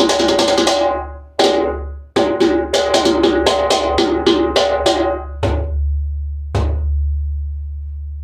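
Iroko-shell djembe, 13.5 inches across, played by hand in fast runs of strokes. After a short break comes a second run at about five strokes a second, then two single sharp strikes about a second apart. A deep low ring sounds under the strokes and fades near the end.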